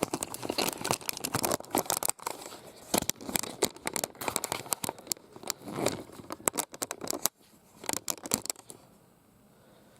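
Dense crinkling and crackling rustle, like plastic being handled or rubbed close to the microphone, with many small clicks; it stops about eight and a half seconds in, leaving quiet room tone.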